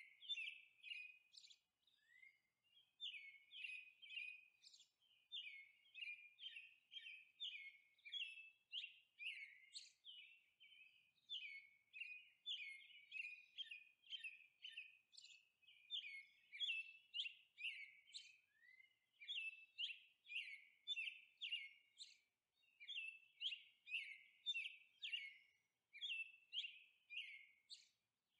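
Felt-tip marker tip tapping quick dots onto paper: a steady run of light ticks, about three or four a second, with short pauses now and then.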